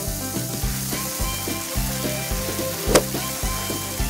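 Sizzling of steak frying on a grill, added as a sound effect over background music with a steady beat. One sharp hit comes about three seconds in.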